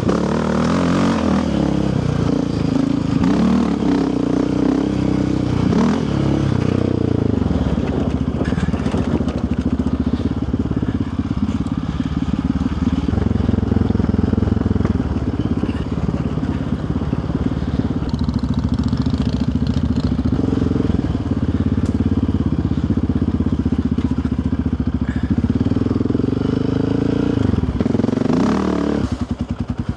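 Yamaha Raptor 700R sport quad's single-cylinder engine under way on a trail. The revs rise and fall repeatedly in the first few seconds and again near the end, with steadier running in between.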